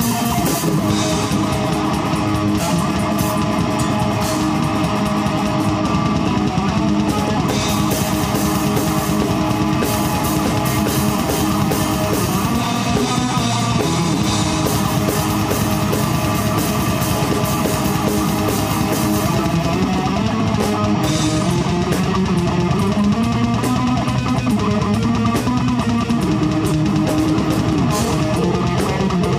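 Metal band playing live: electric guitar and bass riffing over a drum kit, with constant drum and cymbal hits.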